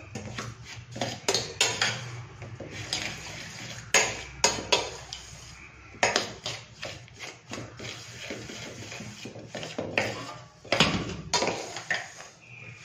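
Steel spoon stirring a dry flour and semolina mix in a stainless steel vessel, scraping and clinking against the sides and bottom in irregular strokes.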